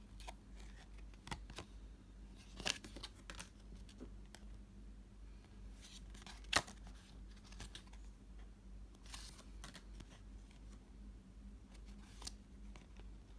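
Trading cards and their packaging handled by hand: scattered light clicks and taps with brief rustles of card and plastic, the sharpest click about six and a half seconds in, over a faint steady low hum.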